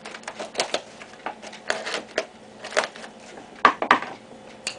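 Smith & Wesson SWAT knife blade slitting through a cardboard shipping box, a run of short, uneven scratchy strokes as the blade is pushed along the seam. The two strongest strokes come close together a little after halfway.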